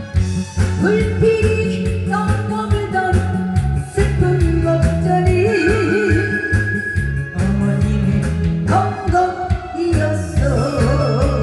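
A woman singing into a microphone over amplified backing music with a steady beat, holding long notes with a wide vibrato.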